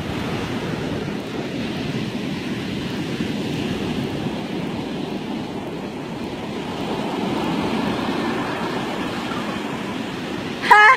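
Ocean surf breaking and washing up a sandy beach, a steady rush. A short, loud, high call cuts in near the end.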